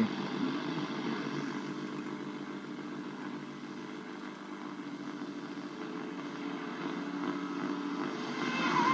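Valve radio's loudspeaker giving a steady hum and hiss of static while tuned across the AM band between stations. Near the end it grows louder as the next station starts to come through.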